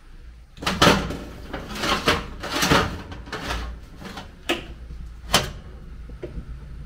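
A series of sharp knocks and clatters from kitchen items being handled, about six of them spread over several seconds, the loudest near the start.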